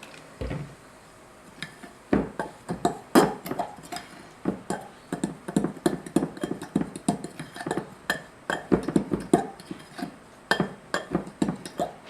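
A spoon stirring a damp powder mixture in a mixing bowl, clinking and scraping against the bowl in quick, irregular strokes, several a second.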